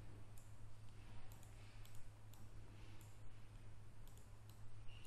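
A handful of faint computer mouse clicks, spaced irregularly about half a second to a second apart, over a low steady electrical hum.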